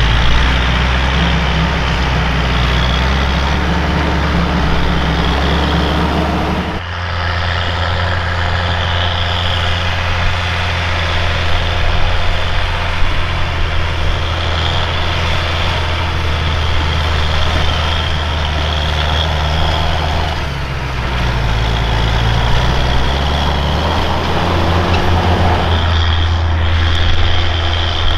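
Fendt 920 Vario TMS tractor's MAN six-cylinder diesel running steadily under load while pulling a disc harrow, a deep drone. The sound changes abruptly about seven seconds in and again near the end.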